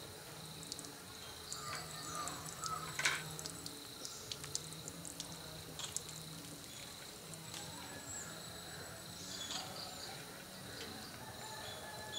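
Quiet outdoor garden ambience: a steady high insect buzz, a few short bird chirps, and scattered small clicks and taps, the sharpest about three seconds in.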